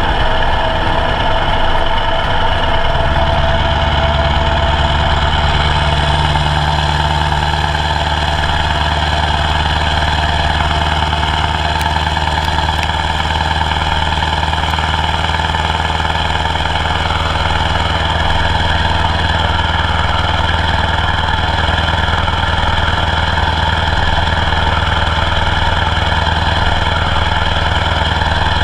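Scania truck's diesel engine running steadily at cruising speed, mixed with rushing wind and road noise on a camera mounted outside the cab. The engine's low drone changes pitch about three seconds in, then holds steady.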